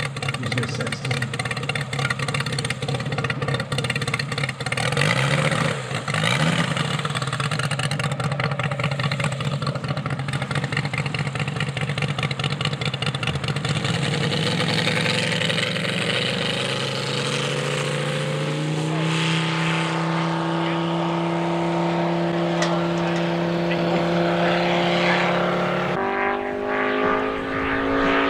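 Large-scale radio-controlled P-47 Thunderbolt model's engine running, at first at low revs with its separate firing pulses heard. A little past halfway the revs step up twice to a steady higher note, then ease back slightly about two seconds before the end.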